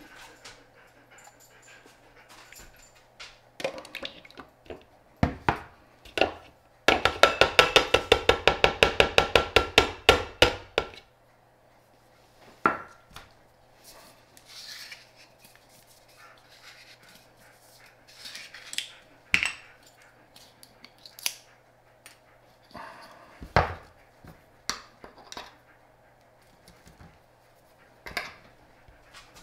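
Paint tins, lids and plastic mixing cups being handled and set down on a countertop: scattered knocks and clinks. About seven seconds in, a loud, fast, even rattle runs for about four seconds.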